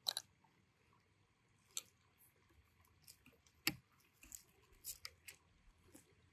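Handling noises: a scatter of short, sharp clicks and knocks as gear is handled, with faint rustling between them. The loudest knock comes about three and a half seconds in.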